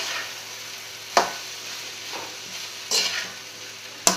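Cooked rice and vegetables stir-frying in oil in a large aluminium kadai, with a steady sizzle. A metal spatula scrapes and knocks against the pan several times, about a second apart.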